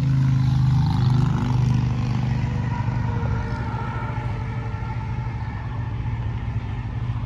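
Chevrolet Avalanche Z71's V8 engine running as the truck reverses very slowly; its pitch wavers up briefly in the first second or so, then it settles to steady running.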